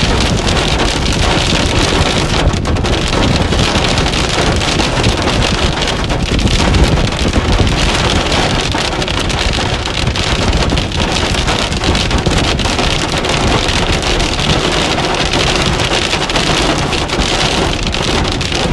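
Hail and heavy rain hitting a car's windshield and body, heard from inside the car: a loud, steady clatter of countless small impacts over a constant wash of rain.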